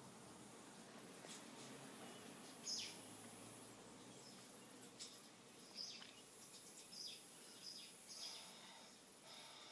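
Faint nature-documentary ambience heard through a television's speaker: about six short high chirps scattered a second or so apart over a quiet hiss.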